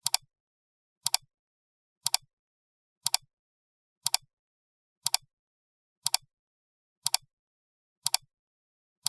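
A sharp, dry double click, repeated exactly once a second, nine times over, each one the same. It is a counting sound effect, one click per number.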